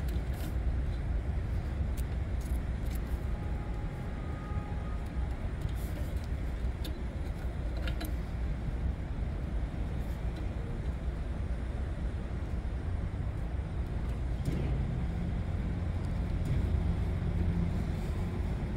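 A steady low rumble of background machinery, with a few faint small clicks as wire nuts are twisted onto the motor's leads.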